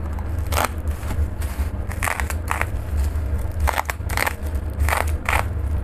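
A craft knife slicing and gloved hands tearing open a parcel of black plastic over bubble wrap: irregular crackling and crinkling of the plastic in short bursts, about eight of them, over a steady low hum.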